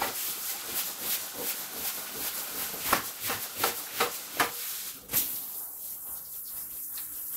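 Pressure-washer spray hitting a wet rug, a hissing spray broken by many short swishing strokes; about five seconds in it changes to a steadier, softer hiss.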